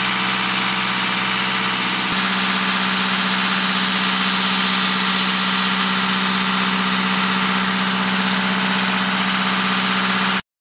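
Onan 12.5 kW diesel generator, its four-cylinder DJC-series diesel engine running steadily. About two seconds in it grows a little louder and brighter, and the sound cuts off suddenly near the end.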